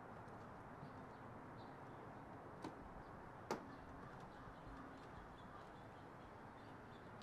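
Quiet early-morning outdoor ambience: a steady low background hum with faint bird chirps, and two sharp clicks close together about halfway through, the second louder.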